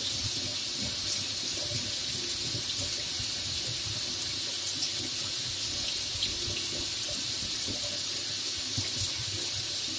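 Water running steadily from a tap as a knife is rinsed under the stream, washing off the whetstone grit.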